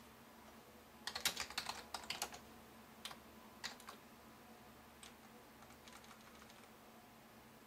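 Computer keyboard keystrokes: a quick run of key presses about a second in, then a few scattered single keystrokes.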